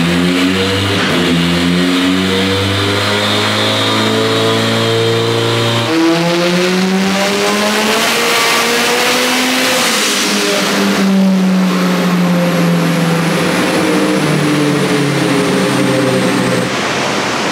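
Turbocharged billet SR20VET four-cylinder in a Nissan GTi-R running hard on the dyno. Its pitch drops sharply about six seconds in, climbs for a few seconds, then drops again around eleven seconds and once more near fifteen.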